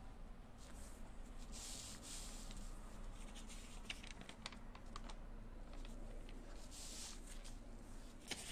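Faint handling sounds of a calligraphy brush and paper: a few soft swishes and scattered light clicks.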